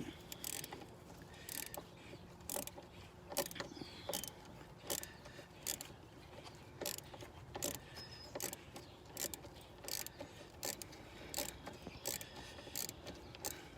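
Ratchet wrench clicking in short, even strokes, about one every 0.7 s, as the purge valve's 8 mm bolts are backed out.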